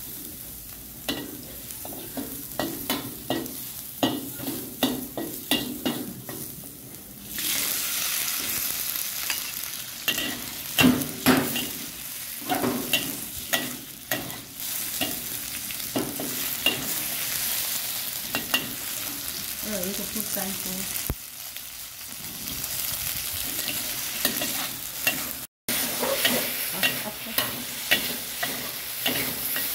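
Stir-frying: a spatula clicks and scrapes rhythmically against the pan. About seven seconds in, a loud sizzle of food frying in hot oil starts and keeps going under the continued spatula strokes.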